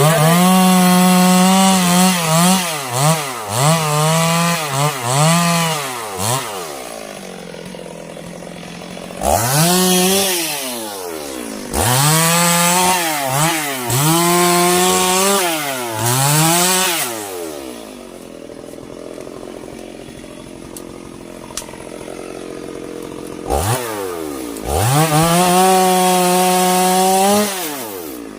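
Two-stroke Stihl chainsaw cutting sengon timber. It runs at full throttle in three spells, its pitch sagging and recovering repeatedly as the chain loads up in the wood, and it drops back to idle in between.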